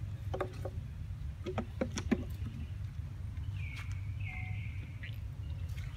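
Two short, high squeals from an infant long-tailed macaque, a little after the halfway point, over a steady low rumble and a few sharp clicks in the first couple of seconds.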